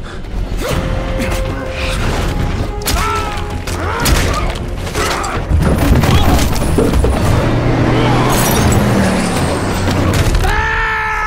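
Action-film fight soundtrack: dramatic score under repeated heavy impacts, booms and crashing, shattering debris. A long held tone comes in near the end.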